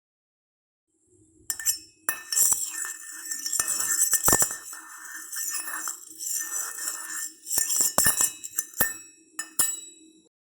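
Repeated clinks and clatters of glass and dishes, with a faint steady low hum underneath, starting about a second in.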